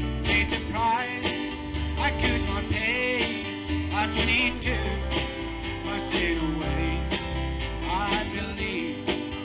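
Live country-gospel band music: a strummed acoustic-electric guitar over bass and drums, with a lead line of bending notes.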